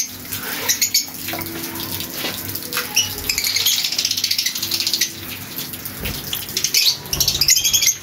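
A flock of caged lovebirds chattering, with many rapid high chirps and squeaks overlapping into a constant twitter that is busiest in the middle and near the end.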